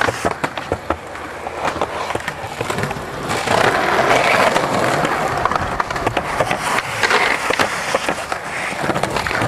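Skateboard wheels rolling on pavement, broken by many sharp clacks and knocks of the board popping, hitting a ledge and landing.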